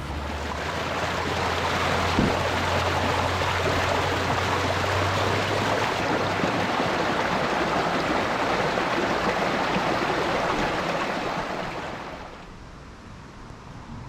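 A steady rushing hiss that fades down about twelve seconds in, with a low hum underneath that stops about six seconds in.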